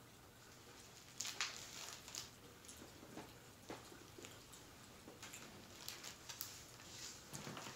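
Crackling fireplace: soft, irregular pops and crackles. About a second in there is a brief louder rustle as a hardcover book is opened and its pages handled.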